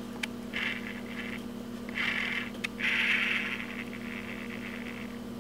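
Smartphone timer's scrolling picker wheel ticking in three short runs as the hours are set, with a couple of light taps, over a steady low hum.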